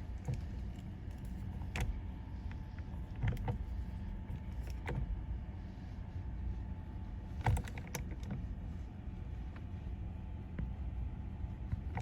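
Ratchet clicking in short scattered bursts, every second or two, as it turns the centre bolt of a steering wheel puller, drawing the steering wheel off its shaft little by little.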